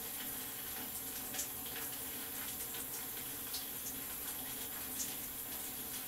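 Steady background hiss, with a few faint soft ticks and rustles as fingers smooth leave-in conditioner through a stretched section of hair.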